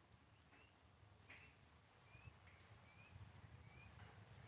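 Near silence: faint open-air ambience with a scattering of short, high chirps and a low rumble that grows slightly near the end.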